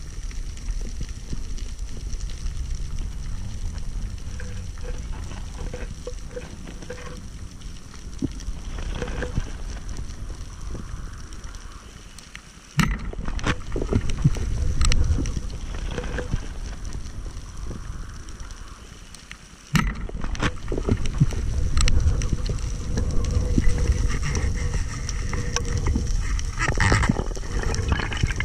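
Underwater sound of a freediver moving through the water: a low rumble of water rushing past the camera housing, with scattered clicks and crackles. It grows abruptly louder about thirteen seconds in and again about twenty seconds in.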